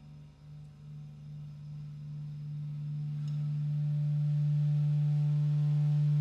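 One low, steady hum-like tone from the band's amplified instruments ringing on after the song, growing gradually louder, with a faint click about three seconds in.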